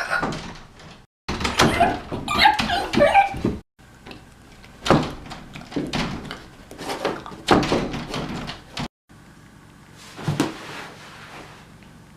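A series of heavy thuds and knocks, with noisy stretches between them, broken by several abrupt cuts.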